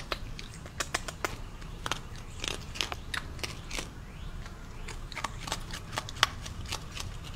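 Raccoon chewing dry cat food kibble: a run of irregular small crunches and clicks.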